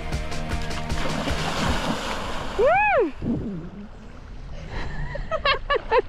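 Water splashing and churning as a mountain bike and rider plunge into a lake, then one loud rising-and-falling whoop from the rider. A few short, high yelps follow near the end.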